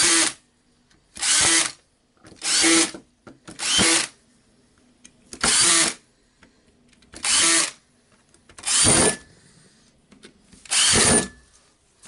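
Small cordless power screwdriver driving the housing screws of a cordless drill back in, in short whirring bursts of about half a second, seven in all, with pauses between them.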